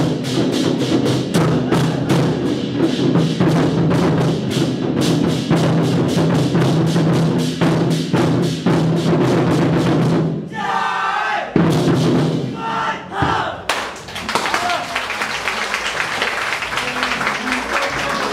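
A troupe of large war drums beaten together in a fast, driving rhythm. About ten seconds in, the drumming breaks off briefly and voices are heard, then it resumes with a denser, noisier sound.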